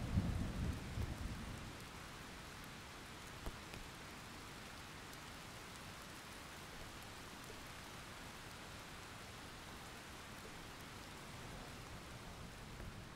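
A roll of thunder rumbling low and dying away over the first couple of seconds, then steady rain falling on plants.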